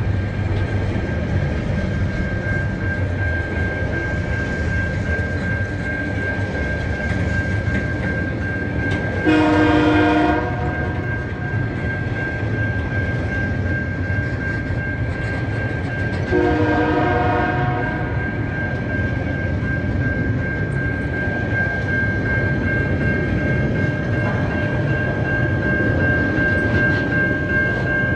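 TasRail freight train of container wagons and empty log wagons rolling past with a steady rumble of wheels on rail. The train's horn sounds two blasts of about a second each, one about a third of the way in and one just past halfway.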